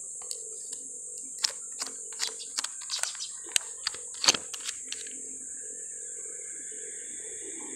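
Steady high-pitched drone of insects such as crickets or cicadas, with a run of irregular sharp clicks and taps from handling the camera between about one and a half and five seconds in.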